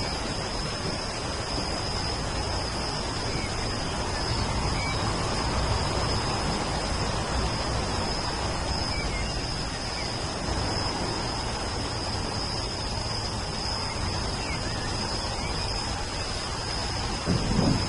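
Steady rain with a continuous high-pitched insect drone and a few faint, brief bird chirps. A low rumble of thunder swells near the end.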